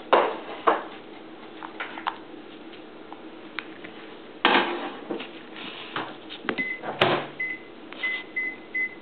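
Knocks and bumps as a papillon puppy plays with a rubber Kong toy right at the microphone, the loudest near the start, about halfway and about two-thirds of the way in. In the last two and a half seconds a run of about six short, high electronic beeps sounds.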